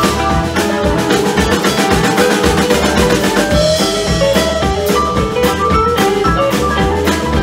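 Live rock band playing: electric guitars and keyboards over a drum kit keeping a steady beat, with a run of quick melodic notes.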